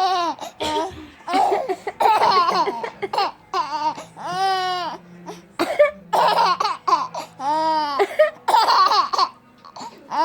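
A baby laughing in a string of short, high, squealing bursts, set off by someone coughing, with coughs between the laughs.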